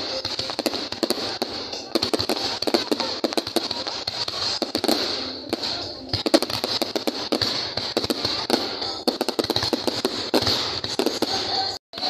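Aerial fireworks going off: a dense, rapid run of bangs and crackling pops.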